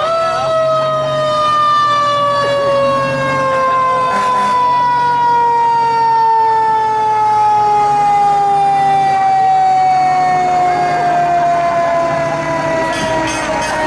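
Fire truck siren sounding one long tone: it sweeps up sharply right at the start, then slides slowly and steadily down in pitch for the rest. A fire truck's engine hums faintly beneath it.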